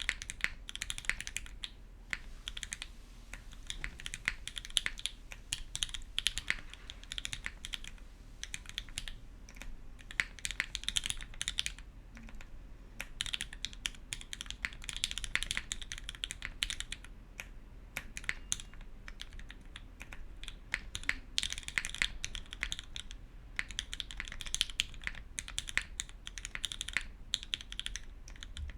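Typing on a custom mechanical keyboard with lubed, filmed Gateron Ink v1 linear switches mounted on an aluminium plate and GMK keycaps: fast, dense keystrokes in runs of a few seconds with short pauses between them.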